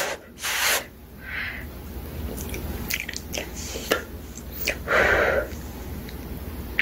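A person blowing short puffs of breath on a piece of hot baked sweet potato to cool it. The puffs come about half a second in and again around five seconds in, with a few small clicks between them.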